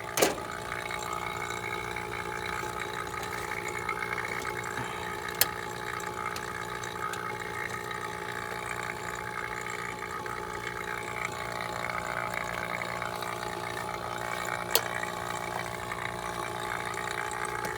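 Refrigerant vacuum pump running steadily with an even hum, pulling moisture out of the newly brazed heat pump system. A few sharp clicks land just after the start, around five and a half seconds in and near fifteen seconds.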